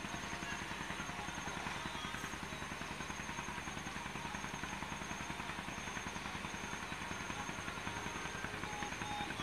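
A small engine running steadily with a fast, even beat, and a thin steady high tone above it.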